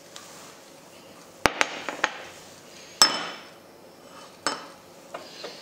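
Kitchen clatter: a handful of sharp knocks and clinks of dishes and utensils, the loudest about three seconds in with a short metallic ring.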